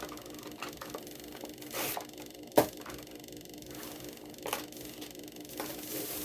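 Hands opening a toy car's blister pack: plastic and card crinkling and tearing, with scattered clicks and one sharp click about two and a half seconds in. A faint steady hum runs underneath.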